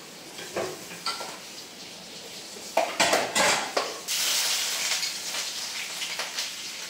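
Metal spoon clinking and scraping in a frying pan, with a few loud clatters about three seconds in. From about four seconds in, a loud, steady sizzle of octopus pieces frying in hot oil as they are stirred.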